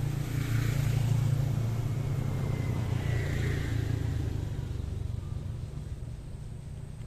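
An engine running with a steady low hum, loudest about a second in and fading away over the last couple of seconds.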